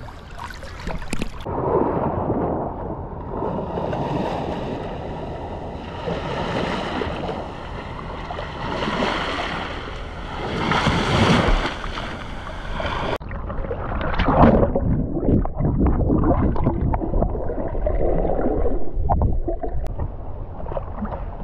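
Wind buffeting the microphone, with rough sea and surf noise, changing abruptly about a second in and again around thirteen seconds in.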